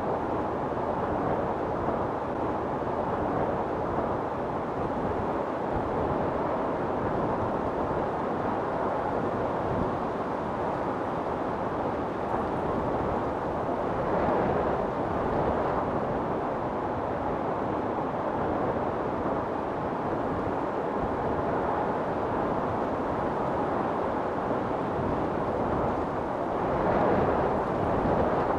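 Storm wind blowing steadily, a dense rushing noise, with gusts swelling about halfway through and again near the end.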